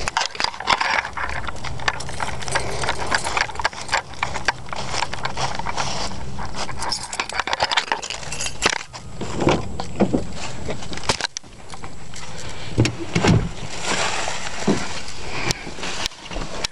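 Rustling, knocking and clicking of a handheld camera carried on foot across grass, with footsteps, then bumps as the person climbs into a pickup truck's cab near the end.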